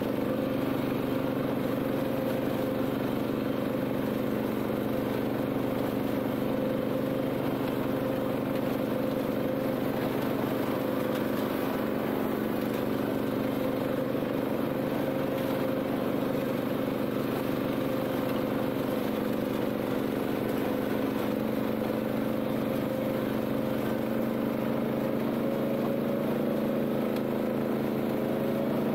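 BCS 740 two-wheel tractor's Honda GX390 single-cylinder petrol engine running steadily at working speed while it drives a flail mower.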